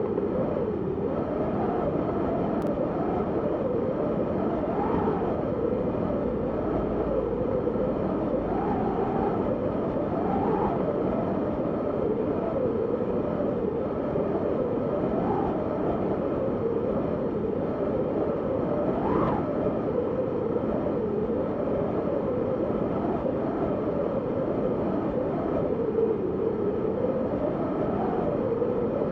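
Strong snowstorm wind blowing without a break, its howl rising and falling in pitch as gusts come and go.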